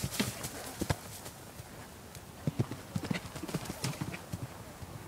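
Pony's hooves striking a dirt arena at a canter: a few hoofbeats at the start, then a quick run of them from about two and a half seconds in as it strides up to and takes off over a small jump.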